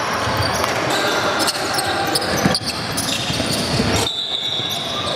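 Basketball bouncing on a gym floor during a game, amid a steady hubbub of voices, with a sharp knock about two and a half seconds in.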